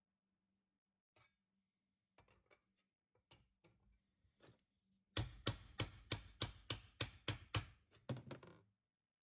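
Hammer striking a sheet-metal patch panel to shape it: a few light taps, then from about five seconds in a quick run of about a dozen sharp blows, roughly four a second.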